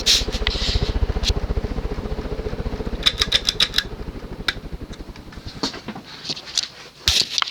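A Saff-built Key Largo 52-inch ceiling fan running, its passing blades pushing air against the microphone in rapid, even low pulses that fade over the first few seconds, over a steady motor hum. A quick run of sharp clicks comes about three seconds in.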